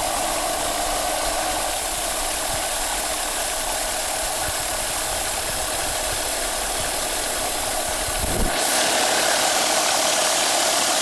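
Self-excited induction generator rig, a Siemens Champion 8-pole 750 W induction motor, running steadily: a constant mechanical whir over a hiss. About eight and a half seconds in, the sound shifts and grows a little louder.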